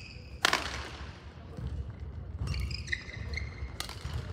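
Badminton rally: a racket strikes the shuttlecock sharply about half a second in, ringing briefly in the hall, and another hit comes near the end. In between, court shoes squeak on the gym floor in short high squeals as the players move.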